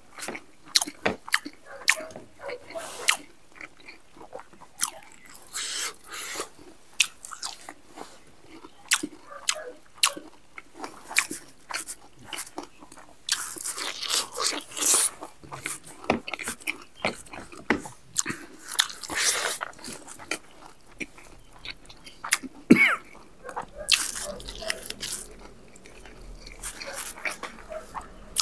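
A man chewing mouthfuls of rice and buffalo meat eaten by hand, with repeated wet smacking and crunching clicks, irregular and busier about halfway through.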